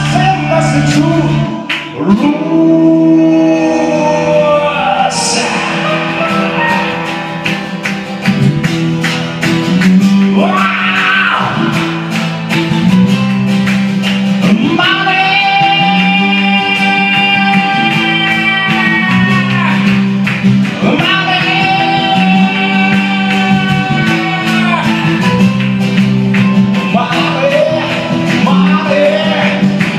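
Small live band playing a rock song: strummed acoustic guitar with keyboard and electric guitar, and singing. Two long held notes ring out in the second half.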